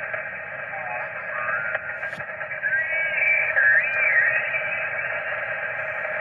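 Yaesu HF transceiver's receiver audio on the 20-metre amateur band in upper sideband as the dial is tuned downward: steady static hiss. Between about one and four and a half seconds in, warbling whistles slide up and down in pitch as an off-tuned signal passes through.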